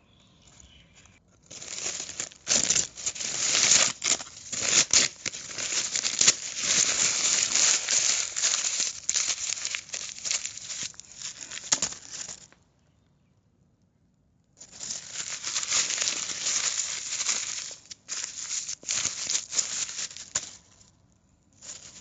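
Paper being crumpled, a dense crackling that goes on for about ten seconds, stops for about two seconds, then resumes for about six more, with a short final crinkle near the end.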